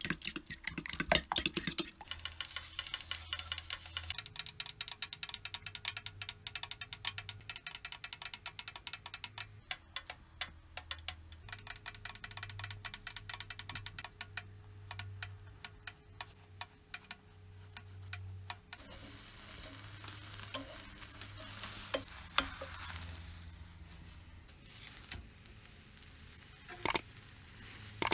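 A fork beating eggs in a ceramic bowl: rapid clicking against the bowl's sides. About two-thirds of the way in this gives way to a steady sizzle of the beaten egg frying in a pan, with one sharp clink near the end.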